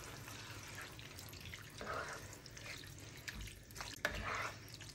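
Quiet, wet stirring of pasta in a creamy sauce with a spatula in a pan, with a few light clicks of the spatula against the pan a little after three seconds in.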